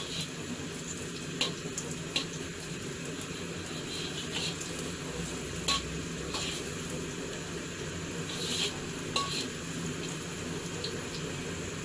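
A utensil is stirring and scraping in a pan, with about seven sharp taps and knocks against the metal, two of them ringing briefly. Underneath is a steady sizzle of ginger frying in a little oil.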